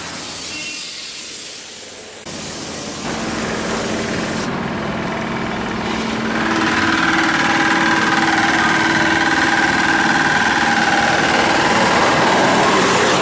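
An engine running steadily with a hiss of machinery noise. From about six seconds in it grows louder, and a steady whine of several held tones joins it.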